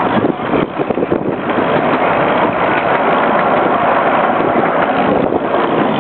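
Miniature park train running along its track, heard from an open-sided passenger car: a loud, steady rushing noise, with a few short rattles in the first second, mixed with wind on the microphone.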